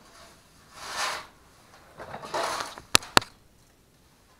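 Broom bristles sweeping a concrete shop floor in separate swishing strokes, about one every second or so, with two sharp clicks close together about three seconds in.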